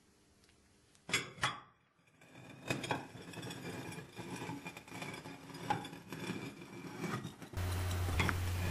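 A heavy stone ball being handled and set down into a plate lying on sand, giving a few sharp knocks and clinks against the plate with light scraping in between. A steady low hum comes in near the end.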